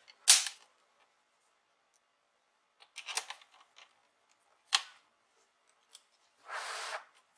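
Sharp plastic clicks as hands press along the edge of a laptop's plastic bottom case: one loud click just after the start, a short cluster about three seconds in, another sharp click near five seconds, then a brief rubbing or sliding sound lasting about half a second near the end.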